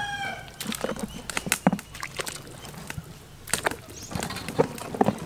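Chunks of raw meat dropped by hand into a pot of water, giving a run of short, uneven splashes and plops. The tail of a rooster's crow fades out in the first half second.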